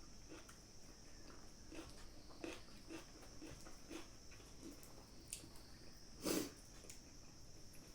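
Close-miked chewing and mouth sounds of someone eating: a run of soft, wet clicks about twice a second, with one louder smack about six seconds in, over a faint steady high hiss.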